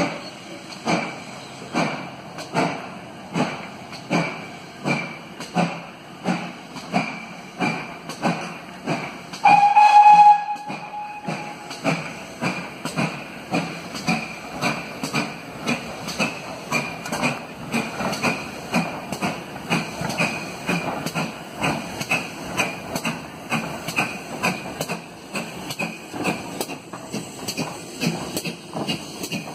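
Great Western Railway Hall-class 4-6-0 steam locomotive working a train, its exhaust chuffs coming a little over once a second at first and quickening to about twice a second. One steady blast on the whistle comes about a third of the way in and is the loudest sound.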